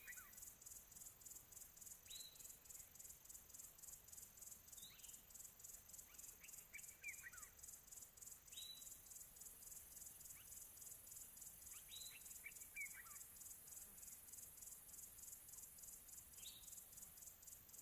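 Faint, steady chirping of insects in a fast even pulse, with short chirps every two to four seconds.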